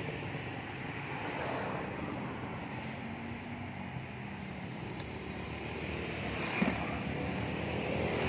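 Steady outdoor road-traffic noise from passing vehicles, with one short knock about six and a half seconds in.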